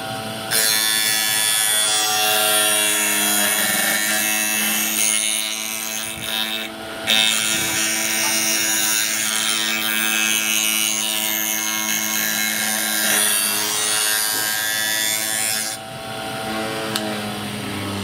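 Electric power tool running with a steady motor hum while working wood, the rough cutting noise starting about half a second in, breaking off briefly around seven seconds, and stopping a couple of seconds before the end while the motor keeps running.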